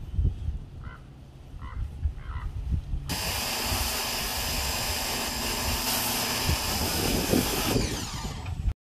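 Low rumble for about three seconds, then a pressure washer starts spraying: a steady loud hiss of the water jet with a low hum under it, which stops abruptly near the end.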